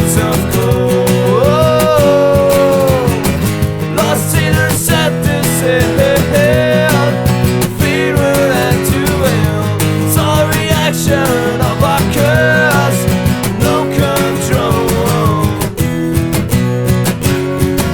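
Acoustic punk song: strummed acoustic guitar with a voice singing the melody over it.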